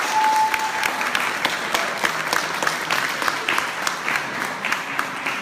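Audience applauding: dense, steady clapping from a seated crowd, with a short held high tone near the start.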